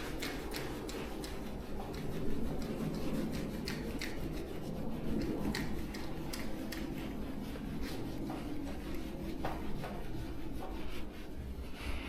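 A scraper rubbing over the car's paint in short, repeated strokes, scraping off thick pieces of old adhesive left from the removed stock spoiler after it was softened with adhesive remover.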